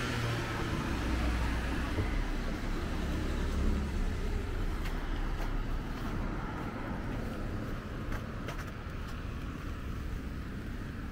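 Street traffic on a wet, slushy road: a passing vehicle's low rumble and tyre noise, fading away over several seconds.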